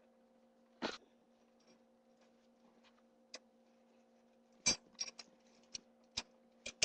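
Sparse light clicks and taps as a lionhead rabbit moves about on the wire floor of its cage, a few more of them near the end, over a faint steady electrical hum.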